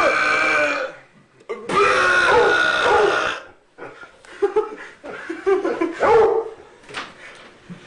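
Loud, drawn-out burps: one ending about a second in, then a second long burp lasting nearly two seconds. These are followed by several seconds of broken, choppy laughter.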